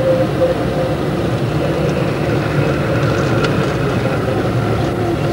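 Steady engine and road noise of a slowly moving vehicle, heard from inside its cabin.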